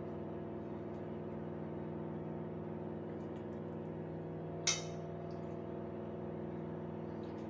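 A steady background hum made of several fixed tones, with one sharp clink about halfway through: a metal spoon knocking the ceramic baking dish while stuffing is spooned into a raw chicken.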